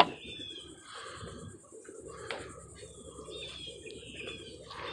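Birds calling with short, high, downward-sliding chirps repeated every second or so. A sharp knock at the very start as a piece of rusty scrap metal is set down on the wooden boardwalk rail is the loudest sound.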